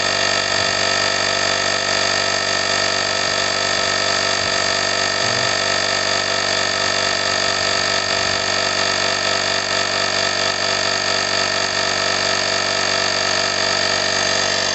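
Portable tire inflator's electric air compressor running steadily and loudly, powered from the car's 12 V outlet, pumping up a car tire as its pressure rises.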